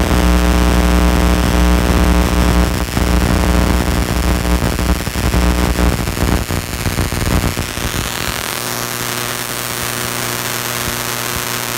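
High-voltage power supply running: a loud electrical hum with many overtones over a hiss of discharge, with a run of crackles midway. The deepest part of the hum drops out about two-thirds through, and the whole sound cuts off suddenly at the end.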